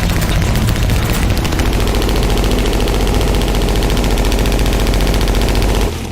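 Suppressed PKM general-purpose machine gun firing a long continuous burst of 7.62x54mmR rounds in a sustained-fire test, cutting off suddenly near the end.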